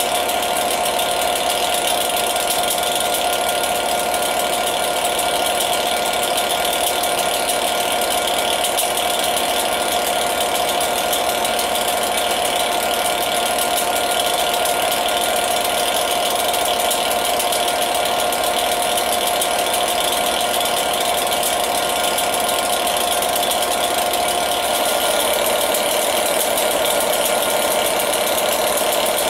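Class 67 diesel locomotive's two-stroke EMD 710 V12 engine idling steadily while the train stands in the station, with a steady whine over the engine noise that drops slightly in pitch near the end.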